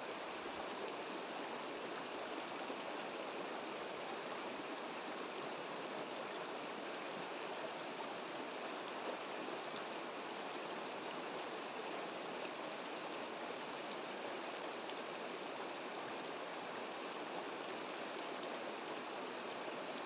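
Shallow, rocky stream flowing over stones: a steady, even rush of water.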